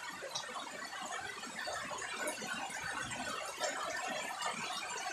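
Steady rain falling on garden foliage, a dense, even patter of countless small drops.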